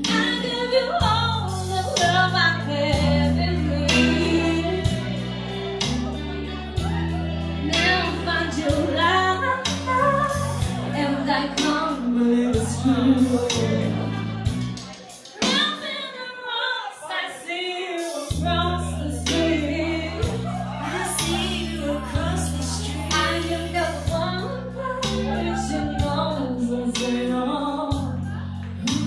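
A woman singing live into a handheld microphone, backed by a band with bass notes and drums. About halfway through, the band drops out for roughly three seconds, leaving the voice nearly alone, then comes back in.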